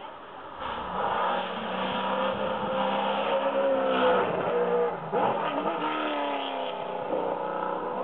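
Race car engine revving hard as the car accelerates past, loudest as it goes by about four seconds in. Its pitch climbs and falls several times.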